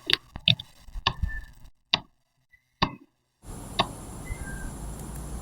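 A quick series of sharp knocks and clicks, then two single clicks with dead silence between them. After that, faint steady room hiss with one more click.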